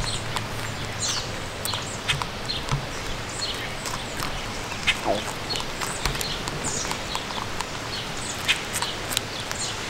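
Pet rabbit chewing a fresh strawberry: quick, irregular little crunching clicks from its mouth, over a steady background of wind noise.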